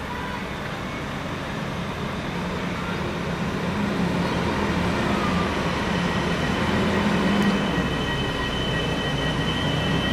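Alstom Coradia LINT 54 diesel railcar pulling into a station, its diesel engine running with a low rumble that grows louder as it approaches. A thin high squeal sets in about six seconds in as it slows.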